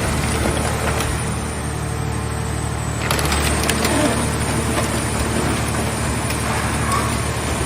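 Scrap car shell baler working: a steady engine and hydraulic hum, with crackling and cracking as a car body is pressed.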